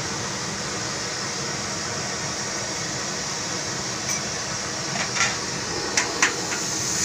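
Chicken fried rice cooking in a wok over a gas burner, with a steady hiss. The metal spatula clanks sharply against the wok several times in the last three seconds.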